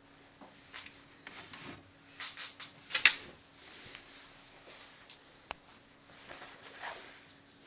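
Handling noises from an opened Victor PC-W330 cassette boombox: irregular plastic clicks, light knocks and rustles, the loudest about three seconds in and a sharp single click about five and a half seconds in, over a faint steady hum.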